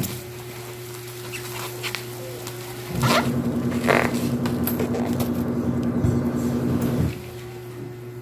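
Plastic wrapping rustling and crinkling as a parcel is unwrapped by hand, loudest about three seconds in. Under it runs a steady hum of several tones that gets louder about three seconds in and drops back about seven seconds in.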